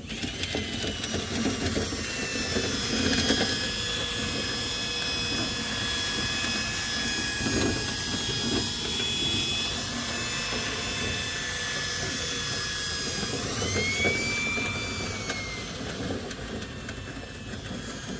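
Motor-driven dryer-vent cleaning rods spinning a whisk tool inside the duct to break up built-up lint: a steady motor whine over a rushing noise, its pitch rising and then falling again about three-quarters of the way through as the speed changes.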